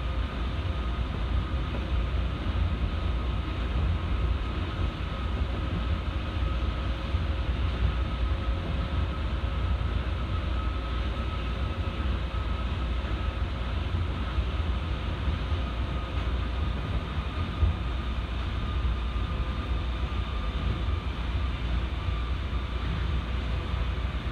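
Osaka Monorail straddle-beam train running at steady speed, heard from inside the front of the car: a low, even rumble of its rubber tyres on the concrete guideway beam, with a steady whine from the traction motors over it.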